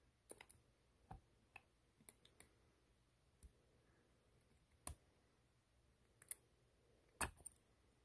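Faint, irregular metallic clicks and ticks as a small screwdriver works a tiny screw out of an Edison Model C reproducer's metal housing, with the loudest clicks about five and about seven seconds in.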